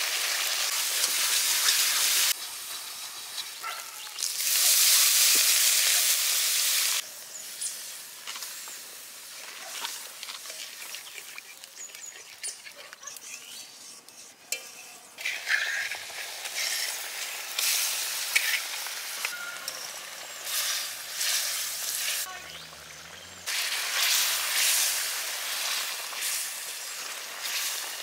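Yogurt-and-spice curry gravy sizzling and bubbling in a kadai as it is stirred. It comes in several spells of loud hiss that start and stop abruptly, with quieter stretches between them.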